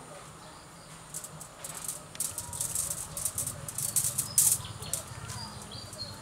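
Pruning shears snipping twigs on a ficus bonsai: a quick run of short, crisp snips with rustling of branches and leaves, the sharpest about four seconds in.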